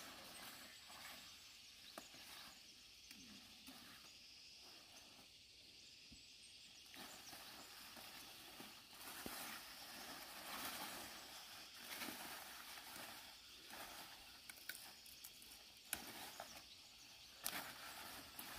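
Faint outdoor ambience with scattered small rustles and a couple of sharper clicks near the end.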